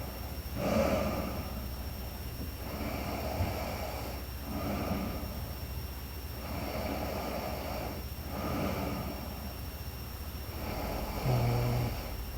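Young woman snoring in her sleep: slow, regular snoring breaths, with a louder, low buzzing snore near the end.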